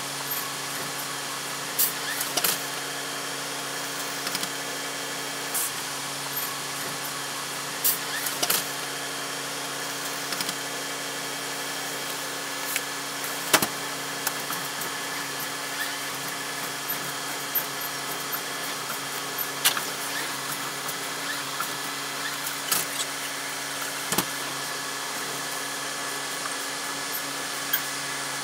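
Inside a city bus: the engine runs steadily with a low, even hum that does not change pitch. A few sharp clicks and rattles break in now and then.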